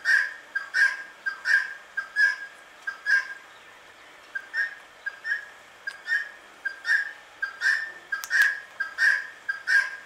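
Indian ringneck parakeet giving short, high calls over and over at a steady pace, about one every two-thirds of a second, with a pause of about a second near the middle.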